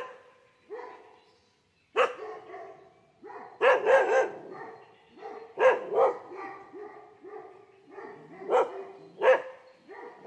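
Dog barking: about eight short barks with uneven gaps, some coming in quick pairs.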